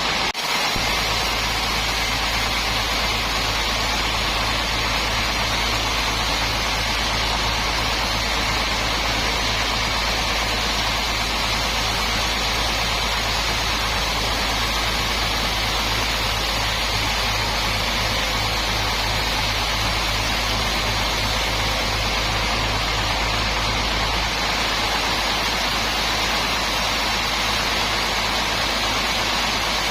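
Sawmill machinery running steadily: a constant loud hiss over a low, pulsing hum, with no change in pitch or load.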